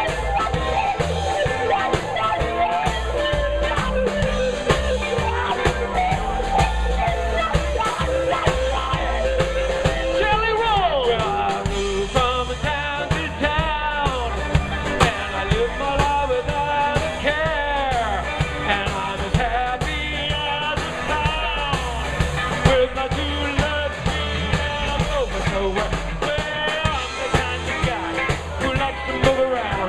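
Live rock and roll band playing an instrumental section: drums and bass keep a steady beat under a lead instrument playing a melody with bending notes, most prominent from about a third of the way in.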